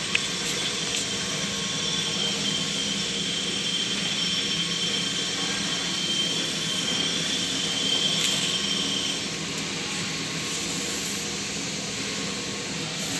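Steady machine hum with a faint high whine that fades out about nine seconds in.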